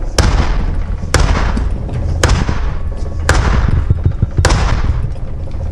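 Five hammer blows, about one a second, struck through a wooden block onto a Honda S2000 CV axle joint clamped in a vise, to knock the stuck joint off its internal C-clip. Each blow is a sharp crack with a short fading tail, over a steady low hum.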